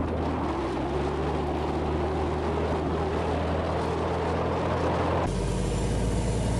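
Patrol boat's engines running steadily under way, with rushing water and wind. The engine tone changes abruptly about five seconds in.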